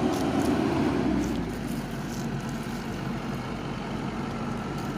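Excavator's diesel engine running steadily, louder for about the first second and then easing off to a lower, even running.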